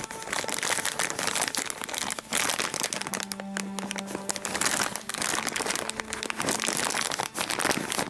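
A clear plastic parts bag crinkling as fingers squeeze and handle it, with small resin parts inside.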